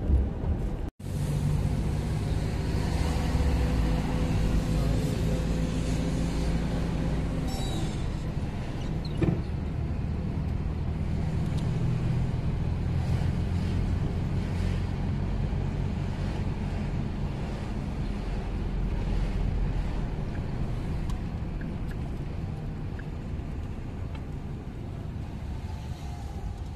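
Car driving, heard from inside the cabin: a steady low engine hum and road rumble, with one short knock about nine seconds in. The sound drops out for an instant about a second in.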